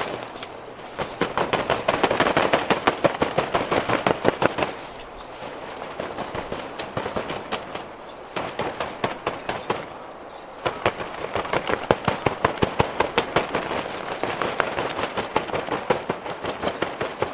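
Canvas tent fabric flapping and rattling in gusts of wind and rain: a fast crackle that swells with one gust, eases off for several seconds, then swells again.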